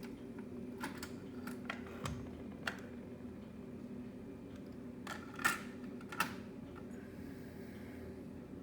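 Sharp clicks and clunks of a Sony TC-FX200 cassette deck's buttons and tape mechanism being worked, several early on and a louder cluster about two-thirds of the way through, over a steady low hum.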